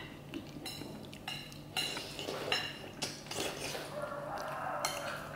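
Chopsticks and tableware clinking against ceramic plates during a meal: a handful of light, separate clinks spread over several seconds.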